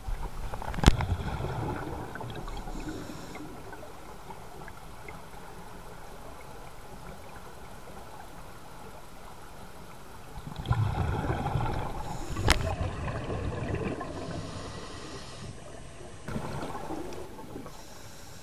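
Scuba diver exhaling through a regulator underwater: bubbles rush out for a few seconds twice, about ten seconds apart, each time with a sharp click, then a shorter rush near the end.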